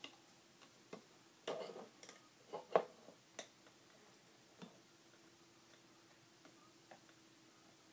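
Scattered light clicks and taps of a metal hook tool and fingers working rubber bands on a plastic loom's pegs, irregular and sparse, the sharpest a little under three seconds in.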